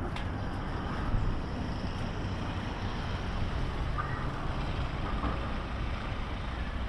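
Steady low background rumble with no distinct events, and a few faint short high chirps about four to five seconds in.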